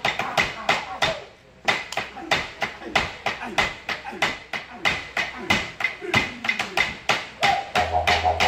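Wooden clapsticks struck in a steady beat of about four clicks a second, with a short break about a second in. A didgeridoo drone comes in near the end.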